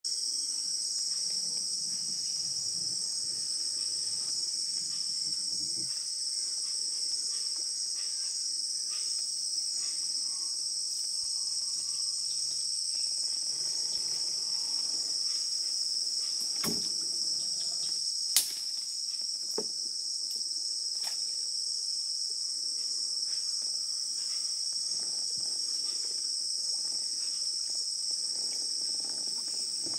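Steady high-pitched chorus of insects, an unbroken shrill drone. A few sharp knocks come a little past the middle, one much louder than the rest.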